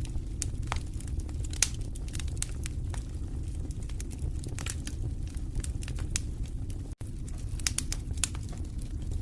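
Wood fire in a fireplace crackling and popping over a steady low rumble of the flames, with irregular sharp pops, one louder than the rest about a second and a half in. The sound cuts out for an instant about two-thirds of the way through.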